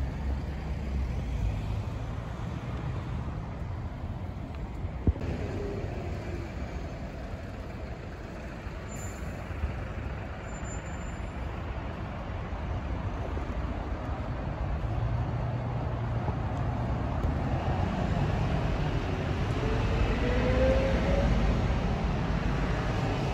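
Street traffic: passing motor vehicles with steady low engine rumble. A sharp click comes about five seconds in, and a faint rising whine about twenty seconds in.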